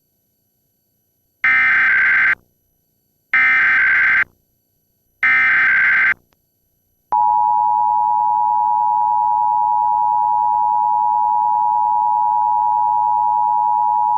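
Emergency Alert System test: three one-second bursts of SAME digital header data, a screeching data tone, then, about seven seconds in, the EAS attention signal starts: a steady two-tone alarm of 853 and 960 Hz.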